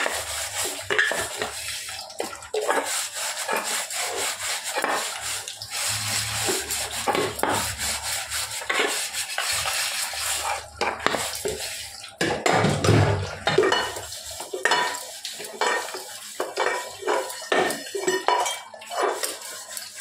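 A steel-wool scrubber rubbing hard over soapy metal utensils in quick, repeated scouring strokes. The odd clink of metal on metal sounds as the vessels are handled.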